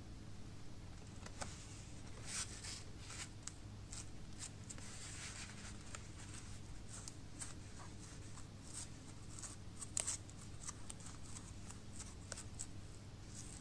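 Faint handling noise: cotton-gloved hands rubbing and pressing a thin black disc, giving scattered small scratches, rustles and clicks, the sharpest about ten seconds in. A steady low hum runs underneath.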